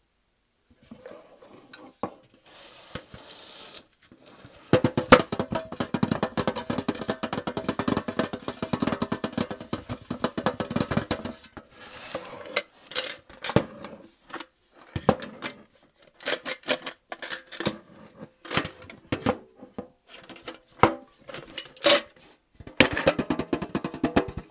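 ASMR trigger sounds: quick tapping and clinking on hard objects that ring faintly, starting about a second in, getting busier after a few seconds, then coming in bursts with short pauses.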